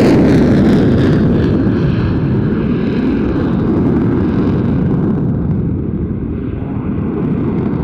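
Jet noise from a Eurofighter Typhoon's twin EJ200 turbofans just after a pass, loud and low, its high, hissing edge dying away over the first few seconds as the jet moves off, leaving a steady rumble.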